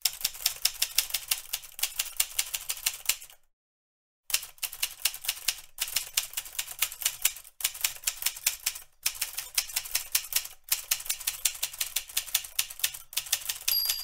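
Manual typewriter typing: fast runs of key strikes, about five a second, broken by short pauses and a brief silence about three and a half seconds in. The carriage bell dings at the very end.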